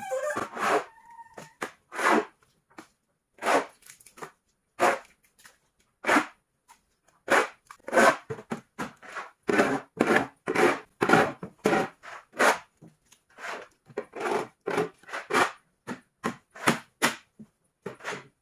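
Shovels scraping wet manure off a barn floor in short, irregular strokes, about one or two a second.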